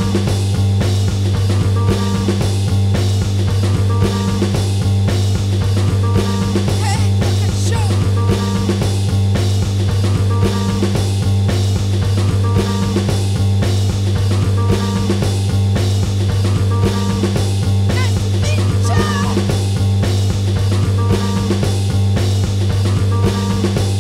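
Instrumental passage of a noisy indie rock song: a steady drum beat over a low, droning bass and guitar, with no singing.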